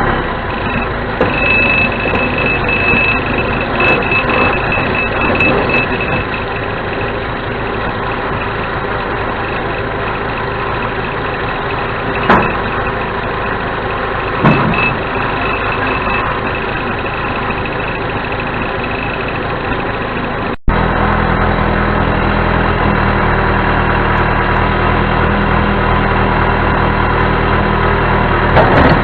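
Four-cylinder diesel engine of a 1987 John Deere 210C backhoe loader running steadily, with two short knocks near the middle. About two-thirds of the way through the sound changes abruptly to a louder, deeper steady engine hum.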